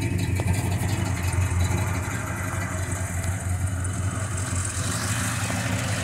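Car engine idling steadily, a low even rumble.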